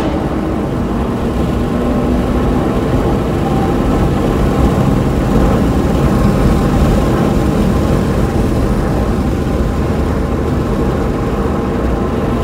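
Car engine and road noise heard from inside the cabin at highway speed: a steady drone with no gear changes or clear revving.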